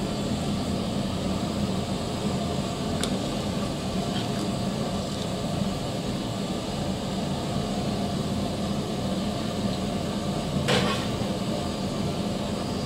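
Steady roar of a large aluminium pot of mutton biryani liquid at a rolling boil over the stove, with a short knock or scrape near the end.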